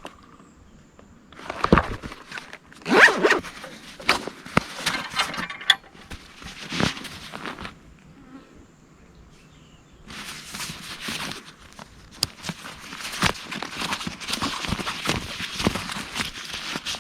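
Gear bags being handled: zippers pulled in several runs with rustling of bag fabric and a few sharp knocks. There is a short pause in the middle, then a longer stretch of zipping and rustling.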